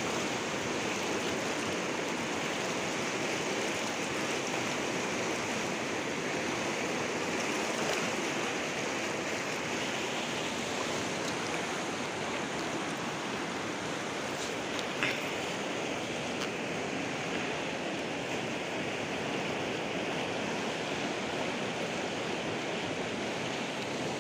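Steady rushing of flowing water, even and unbroken, with one brief click partway through.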